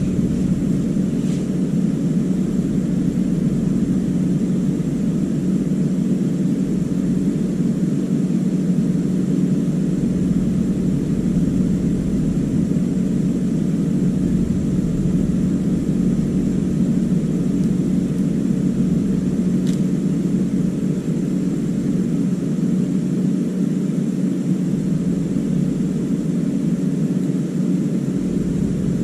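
An electric motor running with a steady, even hum that stays unchanged throughout.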